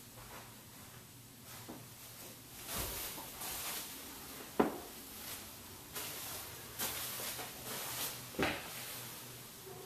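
Interior doors being opened and handled: a series of clicks and knocks, two sharp knocks about halfway through and near the end, with rustling and shuffling in between.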